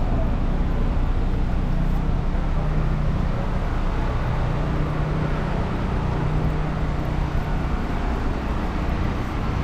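Street traffic with a steady low engine drone from a nearby vehicle over the general hum of the street.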